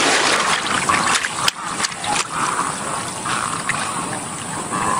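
Water splashing and sloshing as a caiman thrashes prey in its jaws, shaking it hard to tear it apart, loudest at the start, followed by smaller splashes and drips.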